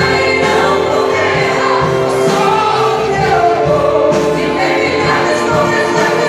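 Church orchestra playing a gospel song, with voices singing over sustained instrumental chords.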